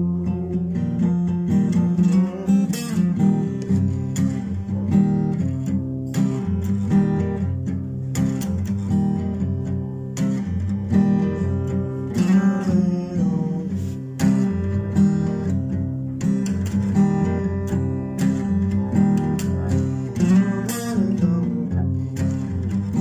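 Acoustic guitar playing an instrumental downhome blues passage, strummed and picked.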